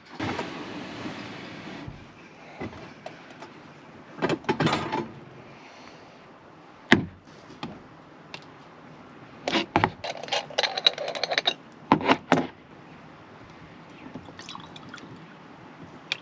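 Camp coffee being made: a short rush like liquid pouring or gas hissing at the start, then scattered clinks, clatters and one sharp knock of cookware and utensils being handled.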